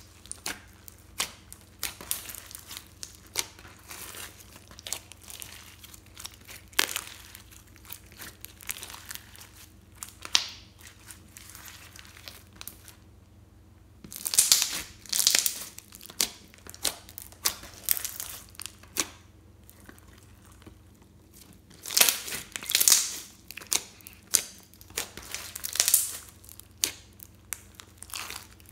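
Glossy slime with small beads mixed in being squeezed and kneaded by hand, giving irregular sticky crackles and pops of trapped air. The pops come in loud clusters with quieter stretches between.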